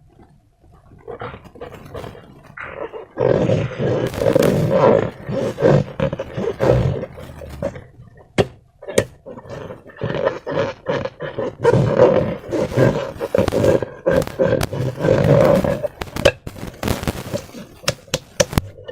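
Slime being squeezed and worked by hand, a dense run of squelching and crackling with sharp clicks, quieter for the first few seconds and busiest after about three seconds in.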